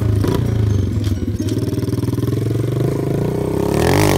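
Pit bike engine running, its pitch climbing as it revs up near the end.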